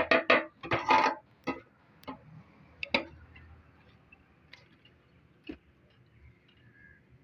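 Steel rods tapping and clinking against a Honda CD 70's sheet-steel fuel tank while a dent is worked out. A quick run of sharp metallic taps comes in the first second or so, then a few scattered, weaker taps.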